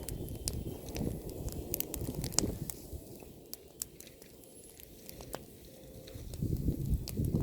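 Bonfire of pruned apple branches crackling, with sharp pops and snaps scattered throughout over a low rumble that eases in the middle and swells again near the end.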